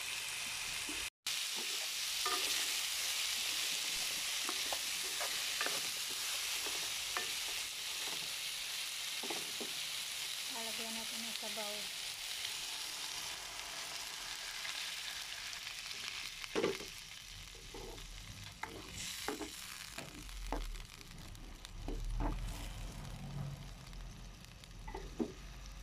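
Chayote, onion and tomato sizzling in hot oil in a wok, with a spatula scraping and tapping as they are stirred. About sixteen seconds in the sizzle dies down as broth is poured into the pan, leaving a low sloshing rumble with a few knocks of utensil on pan.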